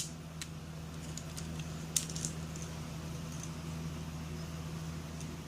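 A few faint clicks of plastic K'nex pieces being handled as the gun is loaded, over a steady low hum.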